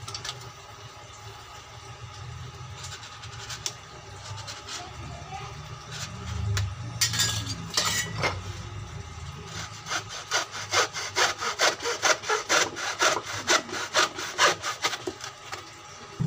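Hand hacksaw cutting through wood: a couple of strokes about seven seconds in, then a steady run of quick back-and-forth strokes, about two to three a second, from about ten seconds in until shortly before the end.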